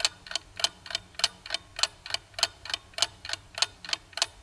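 Ticking-clock sound effect used as a quiz countdown timer: even, sharp ticks at about three a second, alternating tick-tock.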